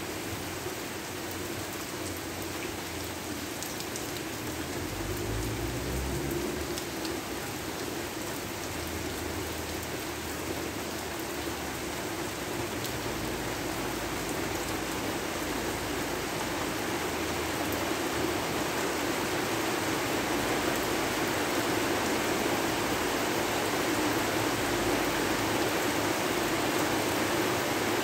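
Steady rain falling, an even hiss that slowly grows a little louder, with a brief low rumble rising in pitch about five seconds in.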